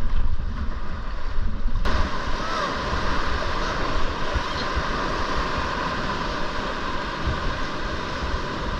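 Rushing whitewater of the river around a paddled raft, with wind buffeting the microphone. The noise turns abruptly fuller and brighter about two seconds in.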